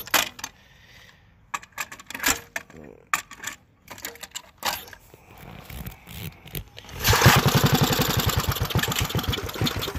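Scattered clicks and knocks, then a methanol-fuelled flathead Briggs & Stratton minibike engine catches about seven seconds in and runs for about three seconds before starting to die away: a start attempt that doesn't hold.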